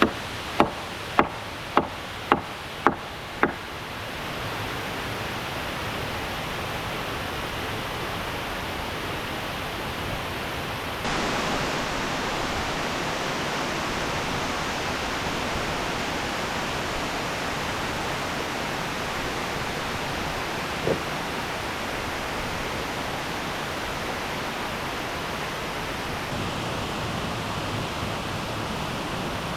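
Steady rushing of a waterfall. In the first few seconds come sharp knocks about two a second, and one more knock comes about two-thirds of the way through.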